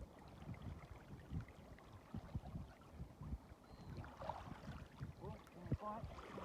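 Faint, gusty wind rumbling on the microphone, with a few faint short pitched calls in the second half.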